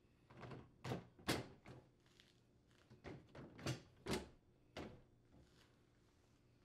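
Plastic freezer drawer bin being set down onto its metal slide glides: a series of light knocks and clacks, plastic bumping on plastic and metal, the sharpest a little over a second in.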